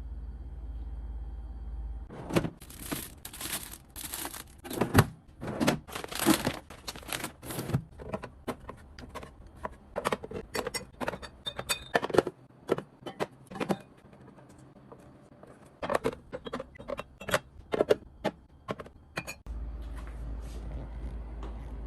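Irregular rustling of plastic packaging with light clicks and knocks of items being handled and set down, as groceries are stocked. It starts about two seconds in over a low steady hum, which drops away while the handling goes on and returns near the end.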